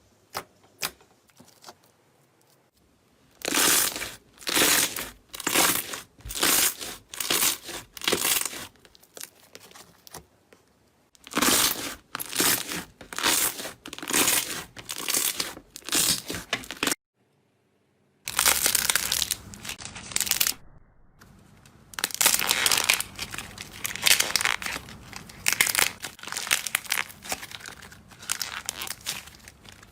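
Slime being squeezed and pressed by hand, making wet crackling and popping squishes in a rhythm of about one or two presses a second. After a brief gap the handling turns into denser, continuous crackling.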